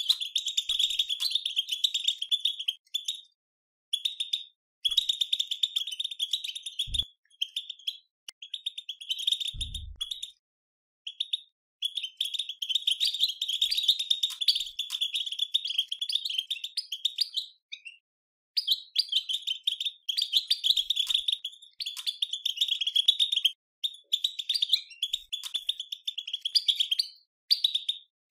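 European goldfinch batbata, the female's rapid twittering chatter, in phrases of a few seconds broken by short pauses. It is the call used to excite caged male goldfinches into singing.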